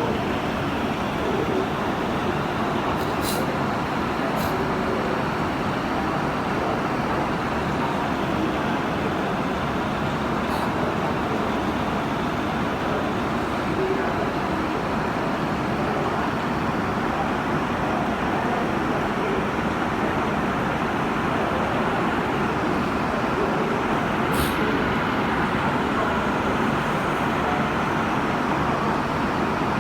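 Steady wash of noise from a vehicle driving on a rain-soaked road in heavy rain, with a few faint clicks.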